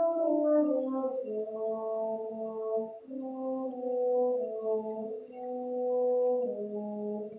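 Youth orchestra of strings with brass playing a slow passage of sustained chords, the notes held for about a second each before moving on.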